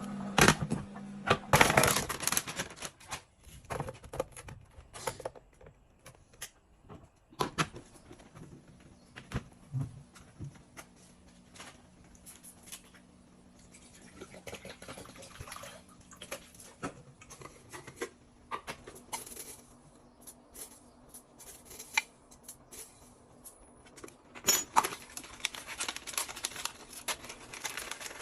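Scattered rustling, rubbing and small clicks of things being handled, with dense stretches of rustling near the start and again near the end.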